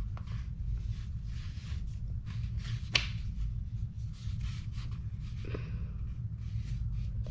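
Paper pages of a thick hand-drawn booklet rustling as they are handled and turned, with one sharp tap about three seconds in, over a steady low hum.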